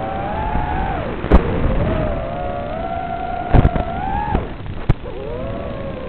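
Brushless motors of a 5-inch FPV quadcopter whining, their pitch rising and falling as the throttle changes. Three sharp pops cut in: about a second in, at about three and a half seconds and near five seconds.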